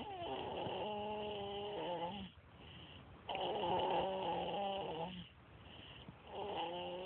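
Sleeper snoring: long snores with a steady pitch, each lasting about two seconds with a short pause between, the third starting near the end.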